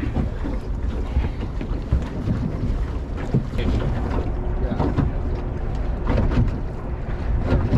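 Wind rumbling on the microphone and choppy water lapping at a small fishing boat's hull, with a few light knocks.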